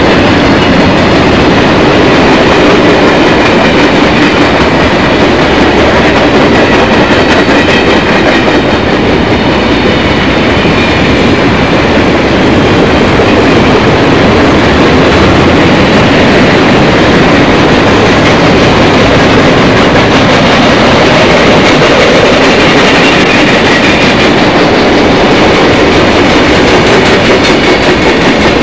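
A train passing close by, its cars rolling past the whole time with a loud, steady rumble.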